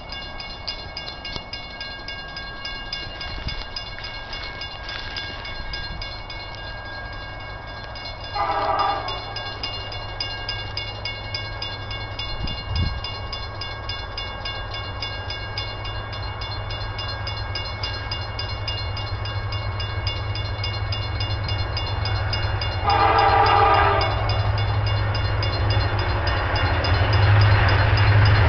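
A Norfolk Southern SD70M-2 diesel locomotive approaching, its low rumble growing steadily louder, sounding two short blasts of its Nathan K5LLA five-chime air horn, about nine seconds in and again near twenty-three seconds. The uploader calls the horn a bad K5LLA, one with a faulty chime.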